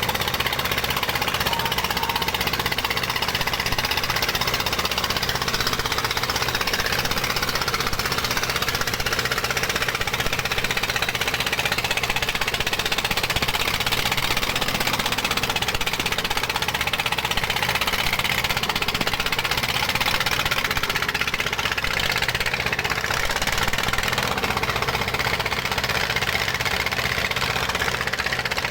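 A dompeng, a Chinese single-cylinder diesel engine with a hopper (tank) cooling system, running steadily at constant speed with a hard, clattering mechanical noise.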